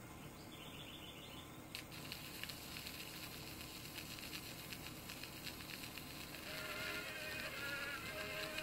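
Celluloid phonograph cylinder played through a hand-held paper cone: a click about two seconds in, then thin, faint surface crackle, with a tinny tune coming through from about six and a half seconds.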